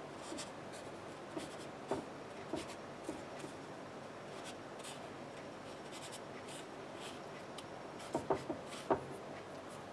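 Faint gritty scratching and light crunches of fingertips scrubbing and flipping syrup-coated ginger slices in granulated sugar in a metal pan, with scattered small clicks and a short run of sharper ones about eight seconds in.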